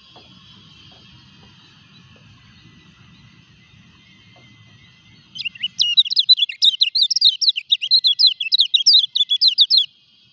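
Caged white-eye (kecial kuning) singing while in moult: a loud, fast run of rapid sweeping high notes lasting about four and a half seconds, starting about five seconds in. Before the song there is only a faint, steady high background.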